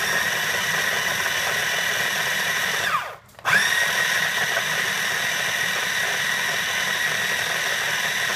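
Small electric food processor grinding peeled garlic, oregano and salt, its motor running with a high steady whine. About three seconds in it stops, the whine dropping in pitch as it spins down, then restarts half a second later and climbs back up to speed.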